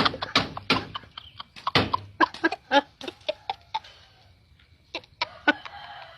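Chicken clucking: a quick run of short clucks that thins out to a few scattered ones after about four seconds.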